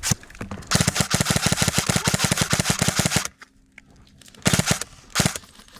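Airsoft gun firing on full auto: a rapid burst of about two and a half seconds, then two short bursts near the end.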